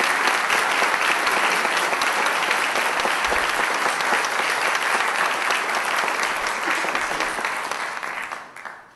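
Audience applause, many people clapping at a steady level, dying away near the end.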